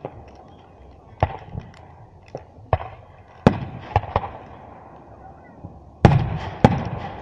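Aerial fireworks bursting in the sky: a string of about nine sharp bangs, each trailing off in a rolling echo, with the loudest two about six seconds in.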